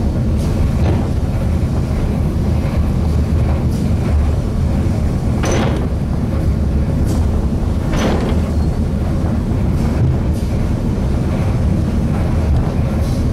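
Eizan Cable Line funicular car running along its track: a steady low rumble, with two sharper clanks about five and a half and eight seconds in.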